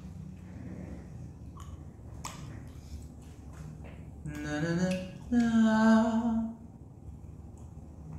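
A young man's voice vocalising without words: a short rising, humming glide about four seconds in, then a steady held note of about a second. A few faint clicks and a low room hum sit underneath.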